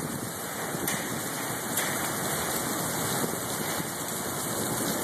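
Heavy rain pouring down steadily in a thunderstorm: a dense, even hiss of drops striking wet pavement.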